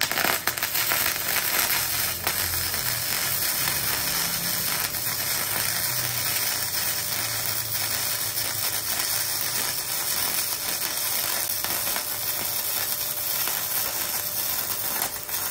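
MIG welding arc from a KOBE MIG-272 PRO welder laying a root pass on steel plates: a steady, dense crackling sizzle that stops just before the end.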